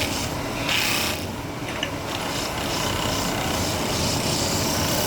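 Continuous rasping, rubbing noise of metal being worked in kettle making, steady throughout with a few brief scrapes.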